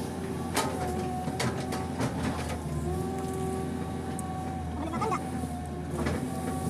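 PC200 hydraulic excavator running under load, heard from inside the cab: a steady engine drone with a whine from the hydraulics, and scattered knocks as the bucket digs. A brief wavering high-pitched sound comes about five seconds in.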